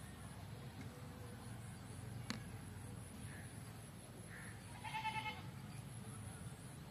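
A short, wavering animal call lasting about half a second, about five seconds in, over a faint steady low hum; a single sharp click a little after two seconds.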